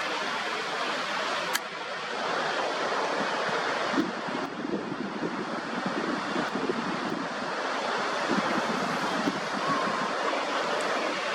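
Ocean surf washing at the foot of the sea cliff, a steady rushing with some wind buffeting the microphone. A couple of brief sharp clicks come through about one and a half and four seconds in.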